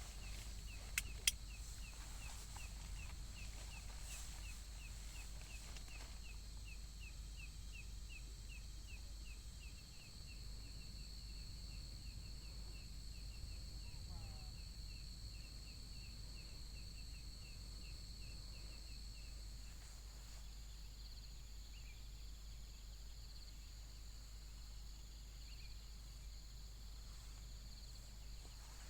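Insects droning steadily at two high pitches, with a run of short, even chirps about three a second that stops about two-thirds of the way through. Two sharp clicks sound about a second in.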